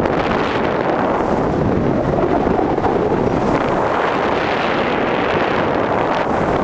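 Loud, steady wind rushing over the camera microphone from the airflow of a tandem paraglider in flight.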